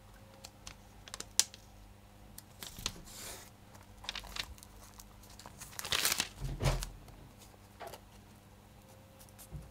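Masking tape and a paper sheet being handled: the tape torn and pressed down along the edge of a print laid on a lino block, then the paper rustling as it is lifted and folded back on its taped hinge. There are a few short bursts of tearing and crinkling, the biggest about six seconds in, among small taps.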